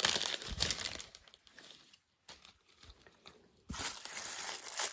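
Toy packaging wrappers being crumpled and rustled by hand, with a pause of about two seconds in the middle.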